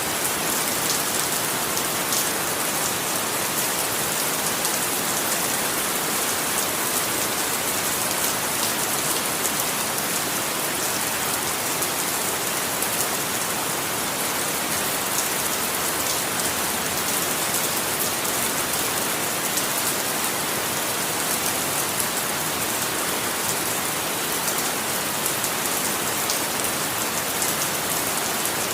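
Steady rain falling, a dense even hiss of drops pattering on a surface, with no thunder.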